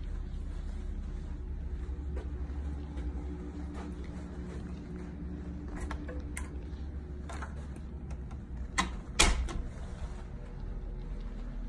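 Steady low room hum with faint handling noise, then two sharp knocks close together about nine seconds in as a closet door is opened.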